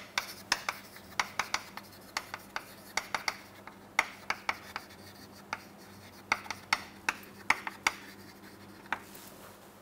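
Chalk writing on a chalkboard: an irregular run of short, sharp taps and scratches as each letter is stroked out, thinning out near the end.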